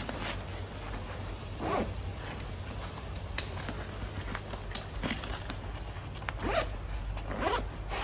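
Zipper on a Helikon-Tex Raider backpack being pulled along in several short strokes as its compartments are opened, with two sharp clicks in between.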